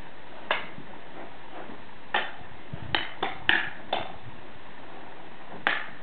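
Steel blades clashing in knife and sword sparring: seven sharp metallic clacks with a short ring, one about half a second in, a quick run of five in the middle and a last one near the end, over a steady hiss.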